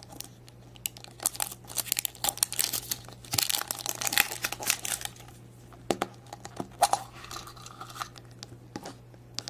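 Printed plastic wrapper crinkling and tearing as it is peeled off a surprise egg, followed by a few sharp clicks about six seconds in as the plastic egg is pried open.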